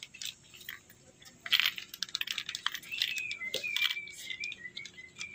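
Plastic parts packet crinkling and small metal washers clicking against each other and the pliers as the packet is handled, with the loudest crinkle about one and a half seconds in.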